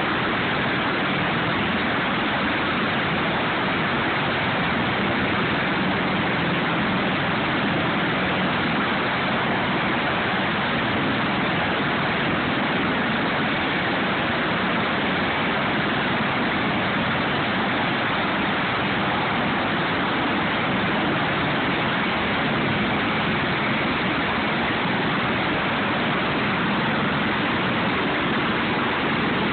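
Sikorsky MH-53E Sea Dragon helicopter running with its rotor turning, its three turboshaft engines and rotor making a loud, steady rush of noise.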